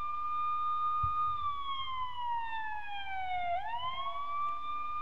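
Siren wailing: a held high tone slides slowly down over about two seconds, then climbs quickly back up and holds again.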